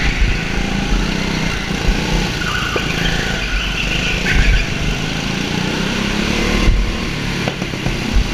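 Go-kart engine running at speed on a track, heard from the driver's helmet, its note shifting as the kart accelerates and lifts through corners, with a brief dip about two-thirds of the way through.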